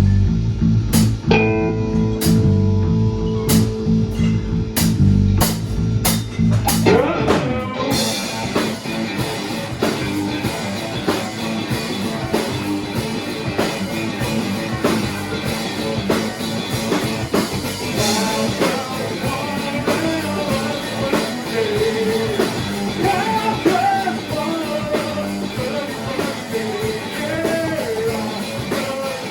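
Rock band playing: a bass line with drum hits and a held guitar chord, then the full band with cymbals comes in about eight seconds in, and a voice sings in the later part.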